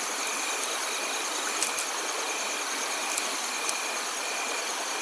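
Crickets trilling steadily over an even hiss of running stream water, with a few faint clicks.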